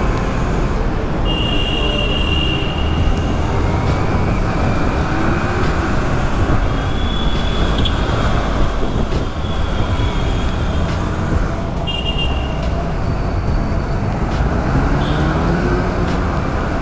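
Motorcycle riding at speed: heavy wind rush and road noise over the Yamaha R15 V3's single-cylinder engine, its pitch rising and falling a few times, with other vehicles in traffic around it.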